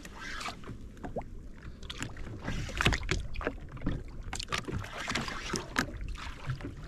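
Water lapping against the hull of a drifting Sea-Doo FishPro Trophy jet ski, with scattered sharp knocks and clicks at irregular intervals while a fishing reel is worked against a hooked snapper.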